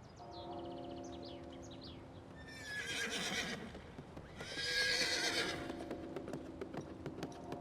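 A horse whinnying twice, then hooves clip-clopping at a steady pace.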